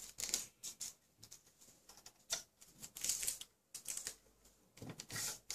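Thermal transfer ribbon being threaded by hand through the rollers and lever of a manual date coding machine: irregular light clicks and rustles of the plastic ribbon and metal parts being handled.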